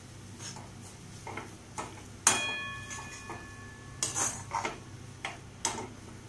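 Metal spoon scraping and knocking against a metal kadai while stirring thick mashed-potato masala. About two seconds in, the spoon strikes the pan sharply and it rings for over a second, followed by more scrapes and taps.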